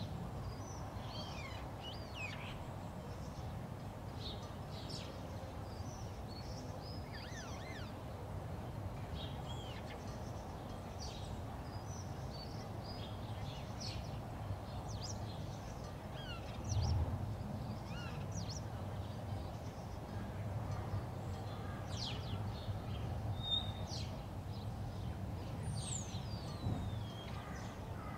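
Outdoor ambience of many small birds chirping and calling in short scattered notes, one a long falling whistle near the end, over a steady low rumble, with a single brief louder low bump a little past halfway.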